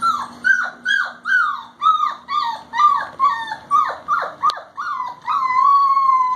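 A four-week-old puppy whining: a run of short cries, each falling in pitch, about two a second, ending in one long drawn-out whine.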